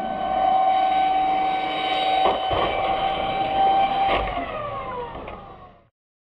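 Electric ducted fan of a HobbyKing Viperjet RC jet whining steadily at full power while the plane tumbles along the runway, with a thud about two seconds in and another about four seconds in as it strikes the ground. After the second impact the fan whine falls in pitch as it winds down, and the sound cuts off abruptly near the end.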